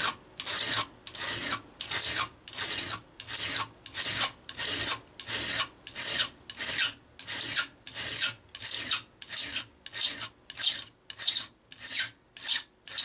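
Flat file stroked repeatedly over a saw chain's depth gauge (raker) through a depth-gauge tool: a regular metal rasping, about two strokes a second with short gaps between. The rakers are being filed down so the chain cuts straight and as aggressively as it was designed to.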